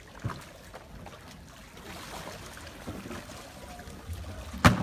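Muddy floodwater sloshing and splashing, with a light knock early on and a sharp, loud knock near the end.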